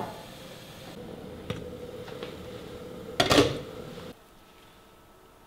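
Kitchenware being handled: a few light clicks, then a louder clatter a little over three seconds in. A faint steady hum underneath stops suddenly about four seconds in.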